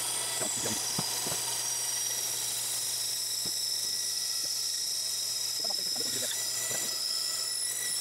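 Bandsaw blade cutting through a thick glued-up laminated wood block, played back at four times speed so it comes across as a steady high whine, with a few light ticks.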